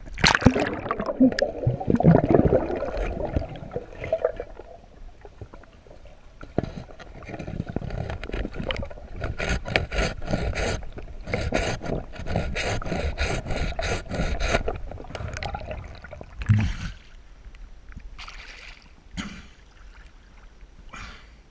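River water churning and gurgling around a camera as it dips below the surface. In the middle comes a run of rhythmic scraping strokes, about three a second, from a saw cutting through a submerged log, and a single thump follows a little later.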